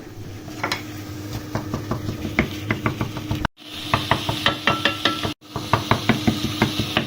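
Quick, regular taps of a kitchen utensil, a few a second and getting faster in the second half, over a steady low hum.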